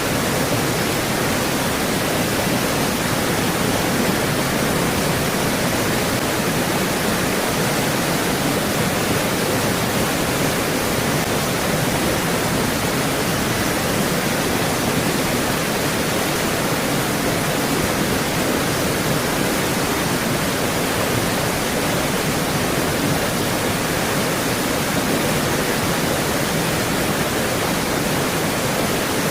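Creek water flowing, a steady, even rushing with no breaks.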